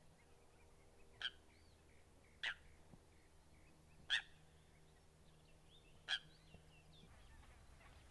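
A rail-family waterbird giving short, sharp single calls, four of them at uneven gaps of roughly one to two seconds. Faint high chirps sound between them.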